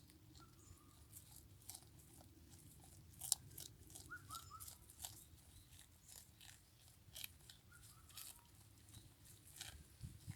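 Goat chewing and tearing mouthfuls of freshly cut grass: faint, irregular crisp crunches and rips. A few faint short chirps come in about four seconds in and again near eight seconds.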